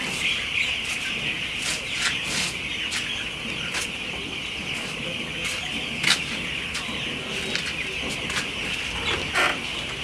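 A dense, steady chorus of many broiler chicks peeping together, with a few short sharp clicks standing out, the loudest about six seconds in.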